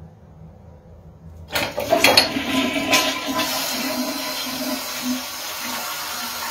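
Wall urinal's flush valve flushing as the handle is pressed: a sudden rush of water starts about one and a half seconds in, with a few sharp knocks in the first second, then runs on as a steady rush.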